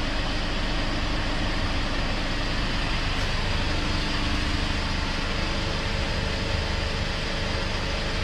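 Car engine idling steadily with its air conditioning running, a low engine hum under an even rush of air.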